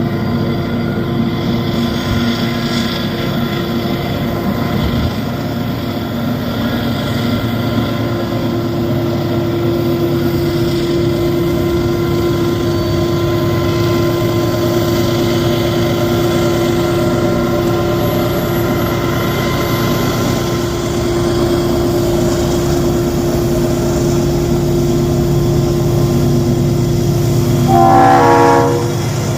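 Diesel-electric freight locomotives working at full throttle up a steep grade, a steady loud engine drone. A short horn blast, about a second long, sounds near the end.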